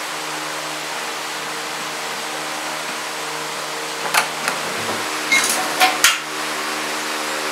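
A few sharp metallic clicks and clinks from a ratchet wrench and socket worked on the generator's bolts, about four to six seconds in, over a steady machine hum.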